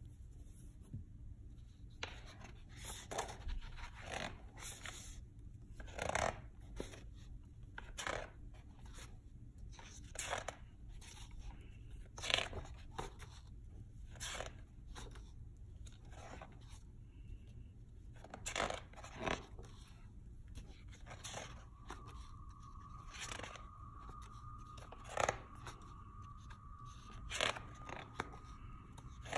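Pages of a large hardcover book being turned by hand, with a paper swish or rustle every second or two. A faint steady tone joins in about three quarters of the way through.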